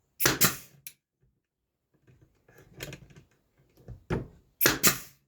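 Brad nailer firing brad nails into fence-picket wood: two sharp shots in quick succession right at the start, a few faint knocks and handling sounds, then two more quick shots near the end, two nails per side of the slat.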